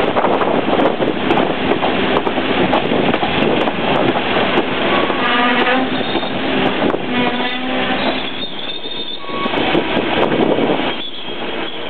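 Amtrak Superliner bilevel passenger cars rolling slowly past at close range as the train arrives, wheels rumbling and clattering on the rails. High squealing tones come in about halfway through as the wheels and brakes work, and the noise eases slightly near the end.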